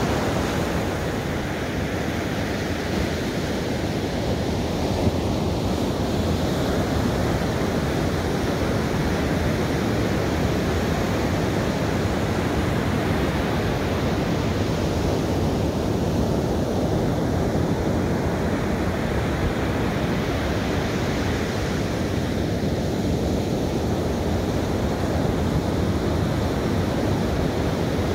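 Ocean surf breaking on a sandy beach: a steady, continuous rush of waves.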